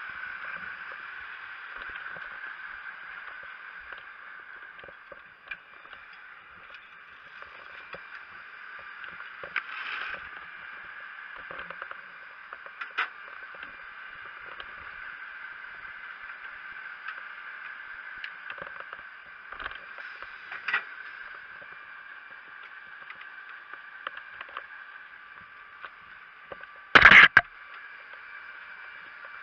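Steady rushing noise of a fire engine's pump running while it supplies water through the hoses, with scattered small knocks. About 27 seconds in, a short, loud bang is the loudest sound.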